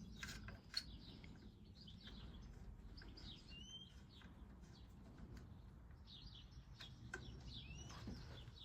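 Faint birds chirping in the background: short high chirps in two spells, one around the middle and one near the end, over a low steady hum, with a couple of light clicks in the first second.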